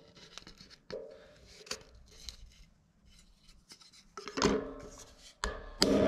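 Clicks, knocks and scrapes of a wooden push stick and hands working against the steel frame of a bandsaw mill around a bolt, then louder clanks in the last two seconds that ring on briefly like struck steel.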